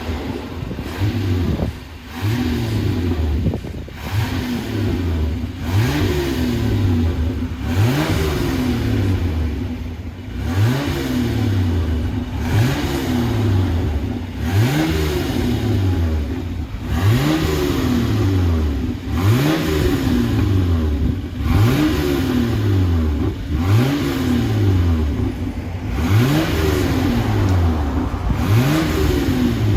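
Gasoline engine of a Toyota Land Cruiser 80 revved over and over, about once every two seconds. Each time the revs climb quickly and then sink back more slowly toward idle.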